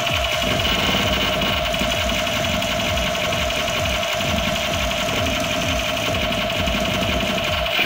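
Background music with a buzzing, machine-like drone and a low pulse repeating about twice a second.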